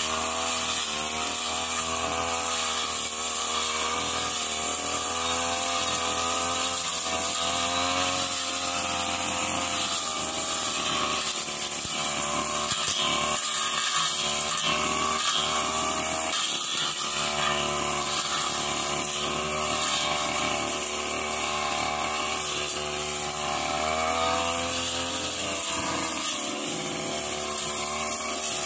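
Backpack brush cutter's small petrol engine running at high speed, its pitch rising and falling as the blade cuts through grass and woody undergrowth, with brief dips a few times.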